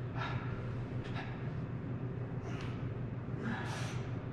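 A lifter's sharp breaths under exertion, four of them about a second apart, while he presses an empty barbell. A steady low hum runs underneath.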